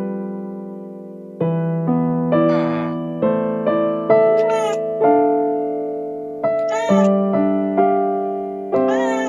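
A slow electric piano melody, notes struck one after another and left to ring, with short cat meows laid over it four times.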